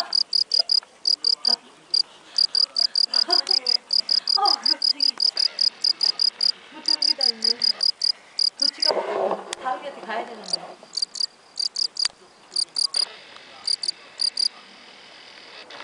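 A cricket chirping in rapid trains of short, high-pitched pulses that stop and start irregularly and fall silent near the end, with faint voices talking beneath it.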